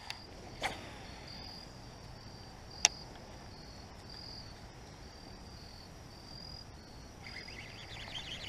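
Insects chirping steadily, a high chirp repeating about two or three times a second, with a sharp click about three seconds in. A second, lower buzzing insect sound joins near the end.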